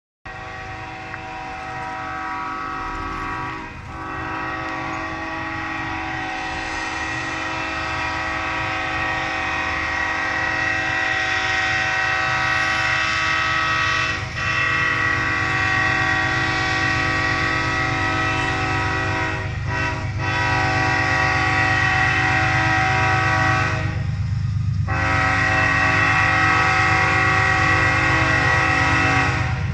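Diesel freight locomotive's air horn sounding a long, near-continuous blast with a few short breaks, over the low rumble of the train, growing louder as the train approaches.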